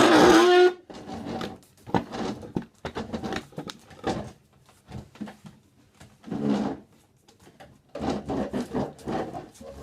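A held musical note cuts off under a second in. It is followed by chairs scraped and dragged across a floor: an irregular run of short scrapes and knocks, with a longer scrape about six and a half seconds in.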